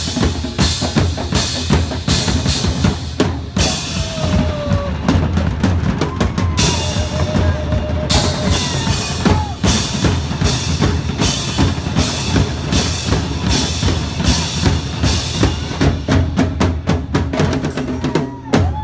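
Loud music driven by a drum kit, with bass drum and snare keeping a steady, fast beat.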